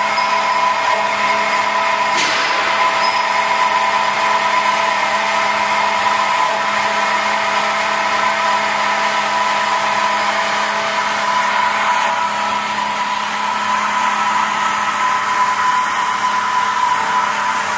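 ALGZ4260 double-column CNC band saw running steadily as its blade cuts through a bundled stack of rectangular steel tubes: a steady mechanical hum and whine, with one brief click about two seconds in.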